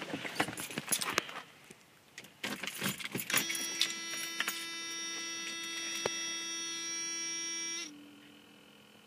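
Keys jangling in the ignition of a 1987 Mercedes 190D 2.5 diesel. Then, with the ignition on ahead of a cold start, a steady electrical whine sets in for about four seconds before dropping lower and fainter.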